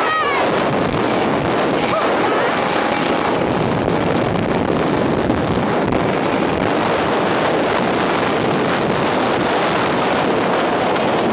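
Steady rush of wind buffeting the microphone during a fast zipline ride, with a short scream right at the start.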